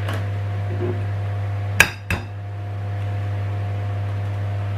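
An egg knocked twice against the rim of a ceramic plate to crack it, two sharp clinks about a third of a second apart, over a steady low hum.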